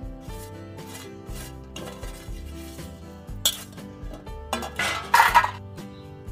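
Background instrumental music, with a sharp metallic clink a little past the middle and then a short, loud clatter of a steel plate being handled and set down beside a grinding stone.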